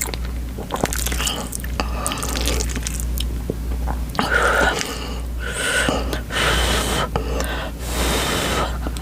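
Close-miked eating of spicy food: wet chewing, squishing and clicking mouth sounds, broken by short, breathy inhales and exhales against the heat.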